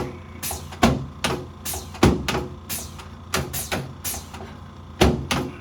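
An irregular run of sharp clicks and knocks, more than a dozen, loudest about a second in, two seconds in and near the end.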